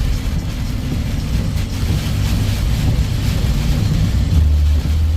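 Heavy rain hissing steadily under a loud, continuous low rumble.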